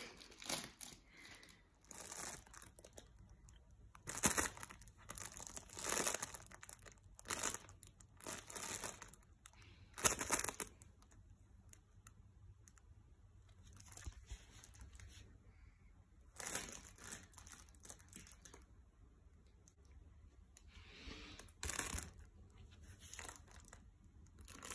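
Crinkly nylon cat play tunnel rustling and crackling in irregular bursts as a Maine Coon cat moves around inside it, with quieter pauses in between.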